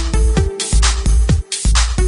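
Electronic dance music with a steady beat: deep bass kicks that drop in pitch, sharp bright percussion hits and held synth notes.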